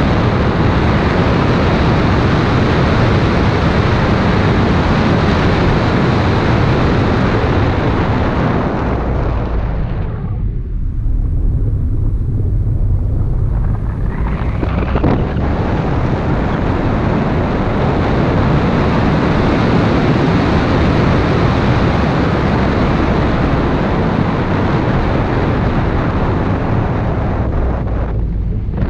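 Wind buffeting the microphone of a camera mounted outside a moving Toyota MR2 Mk2, over a steady low rumble from the car and road. About ten seconds in, the wind hiss eases for a few seconds, leaving mostly the low rumble, then it rises again.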